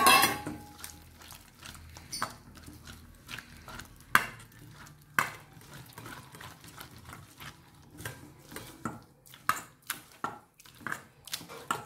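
Hand mixing thick besan batter in a stainless steel bowl: wet squelching and scraping with scattered light knocks of the bowl. A loud metal clank at the very start as a small steel bowl is set down on the counter.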